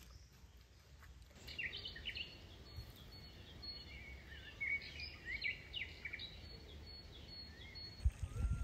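Small birds chirping and twittering: many quick high calls with short rising and falling slides, starting about a second and a half in. Near the end there are a few low thumps, and music begins.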